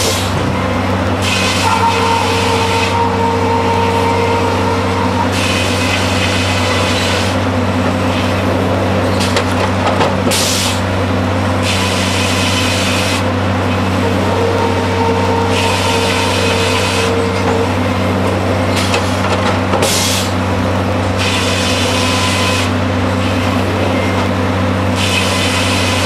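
Circle sawmill at work sawing cross ties: over a steady low machinery drone, the saw makes a hissing cut every few seconds as the headblock carriage feeds the log through, and a steady whine comes in twice for a few seconds.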